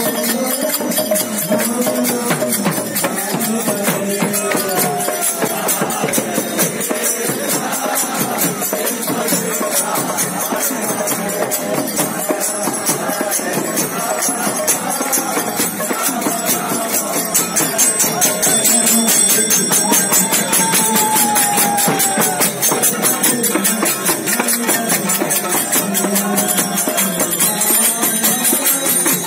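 Hare Krishna kirtan: a lead singer chanting into a microphone with the group, over mridanga drum and karatal hand cymbals ringing in a steady, fast rhythm.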